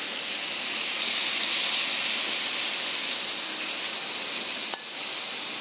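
Marinated prawns shallow-frying in coconut oil in an iron wok: a steady sizzle, with a single light click near the end.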